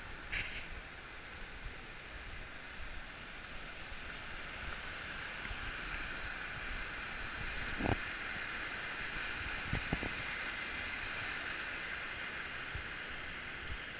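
Rushing mountain stream tumbling over rocks: a steady, even rush of water. A few short knocks come through about eight and ten seconds in.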